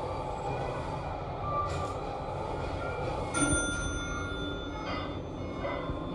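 Steady low rumble of subway station noise, with a knock and a brief high-pitched ringing tone about three and a half seconds in.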